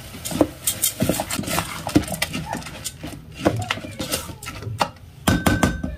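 A plastic rice paddle stirs and scrapes rice grains and spices in an electric rice cooker's oiled pot, giving a quick run of scrapes and knocks. Near the end there is a denser clatter with a brief ringing tone as the cooker's glass lid goes on.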